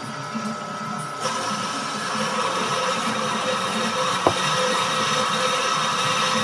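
Dedra 550 W metal-cutting band saw running with a steady whine. About a second in, the blade bites into the metal workpiece and a louder hissing cutting noise comes in and holds. One sharp click comes a little past the middle.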